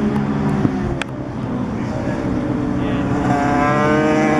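Chinese copy of a Honda CG125, its single-cylinder four-stroke engine running under throttle as the bike pulls out of a corner, the engine note climbing steadily in pitch and getting louder over the last couple of seconds as the bike accelerates toward the microphone.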